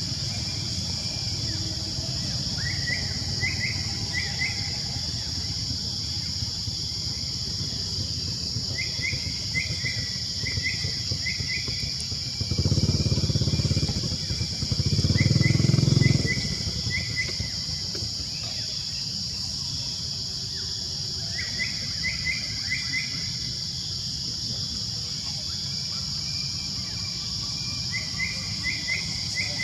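Outdoor ambience of a steady high-pitched insect drone, with a bird calling in quick runs of three or four rising chirps every few seconds. About halfway through, a louder low rumble rises and fades over roughly four seconds.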